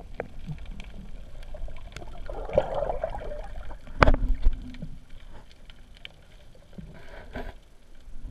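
Muffled underwater water noise picked up through a GoPro's waterproof housing, with a gurgling stretch about two and a half seconds in and a single sharp knock about four seconds in.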